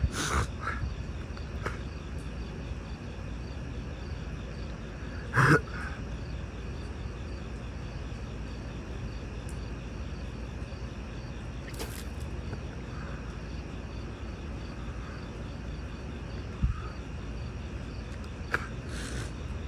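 Night-time outdoor ambience: steady rain hiss with insects chirping in an even, repeating pulse. One brief loud vocal sound comes about five and a half seconds in.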